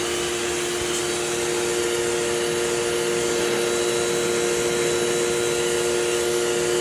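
Crompton CPW70 electric pressure washer running steadily: the motor-driven pump gives a constant two-note hum under the hiss of the water jet spraying the tiles.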